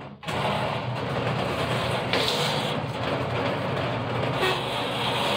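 Alkamac TL50 mini electric drain-cleaning machine switched on about a quarter second in, its motor spinning the cable drum and flexible cable with a steady mechanical rumble.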